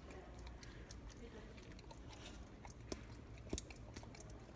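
A dog licking and smacking its mouth on sticky peanut butter: scattered soft wet clicks, with a few sharper smacks about three and three and a half seconds in.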